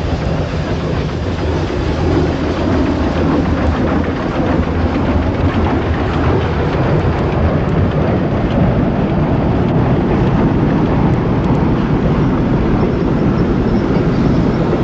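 Steam-hauled train passing: the two steam locomotives Südbahn no. 671 and ÖBB 56.3115 pulling a train of passenger coaches, a steady loud rumble of engines and rolling stock on the track.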